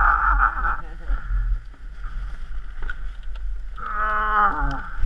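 Snowmobile engine idling with a steady low rumble. About four seconds in, a short pitched sound falls in pitch for under a second.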